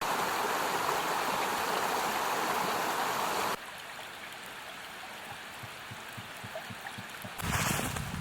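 Steady rush of running water that cuts off abruptly about three and a half seconds in, leaving quieter outdoor noise; near the end wind starts buffeting the microphone.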